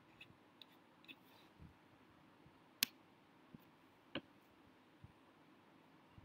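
Near silence broken by a handful of short, scattered clicks and taps, the loudest about three seconds in and another just after four seconds.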